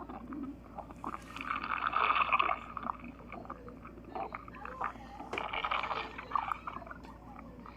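Stomach growling and gurgling in uneven bouts, loudest about two seconds in and again around six seconds, with small squelching clicks between.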